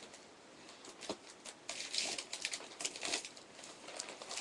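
Paper packaging rustling and crinkling while the strings tied around it are cut off with a razor knife, with several sharp clicks and snips.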